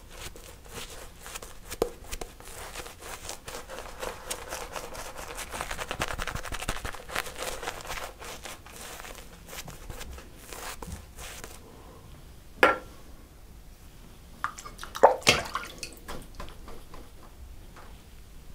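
Shaving brush swirling wet lather on the face: a dense, squishy crackle that goes on for about eleven seconds, then stops, leaving a few short, sharper sounds.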